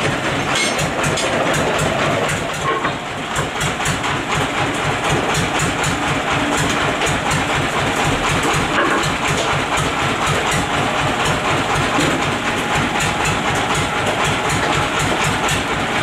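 Sawmill machinery running steadily, a continuous low mechanical rumble with a rapid, even clatter of knocks several times a second.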